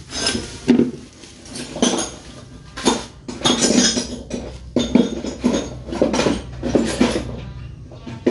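Metal tools and small parts clinking and clattering as they are handled, in an irregular series of sharp knocks.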